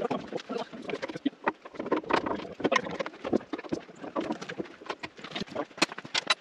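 Irregular clicking and clanking of hand tools and bolts against the steel frame of a sawmill, with many short knocks at uneven spacing.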